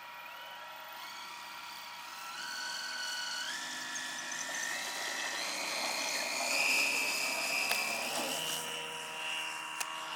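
Radio-controlled aerobatic pattern plane flying, its motor and propeller whining. The pitch steps up several times as the throttle is advanced, and the sound grows loudest about two-thirds of the way through before easing off.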